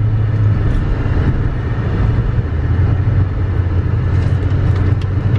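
Steady low engine and road rumble of a car, heard from inside the cabin.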